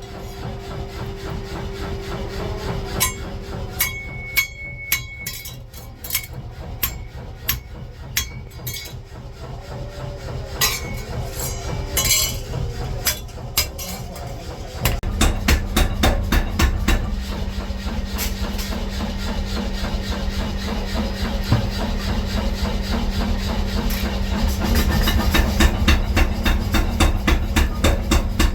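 Metalworking shop noise: scattered hammer strikes and clinks on steel, some ringing briefly. About halfway in, a machine starts up and runs with a rapid, even rattle of strikes over a steady hum, louder than the strikes before it.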